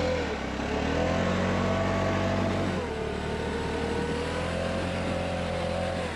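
An engine running steadily, its pitch drifting up and down a little as it is revved gently.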